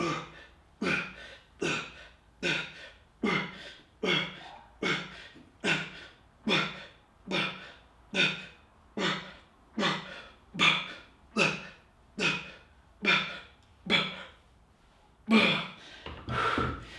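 A man breathing out hard once per rep, about one breath every 0.8 seconds, through a set of rows. The rhythm stops about 14 seconds in, and a second or so later heavier, uneven panting starts as the set ends.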